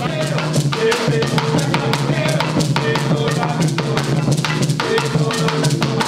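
Afro-Esmeraldan marimba music, led by dense, fast drumming with deep bass-drum strokes over steady low notes.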